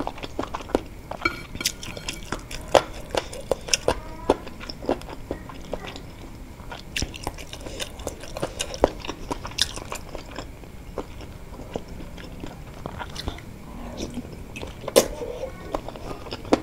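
A person chewing wontons with chicken-cartilage filling from a spicy soup: close wet mouth sounds with many sharp, irregular clicks.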